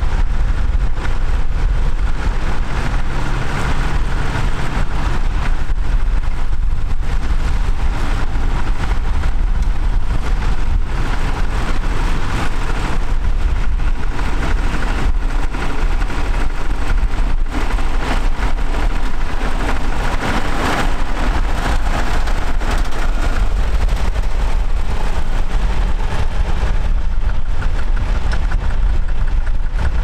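Engine of a vintage Fordson tractor running steadily under load as it pulls a mounted plough through the soil, with a constant low rumble.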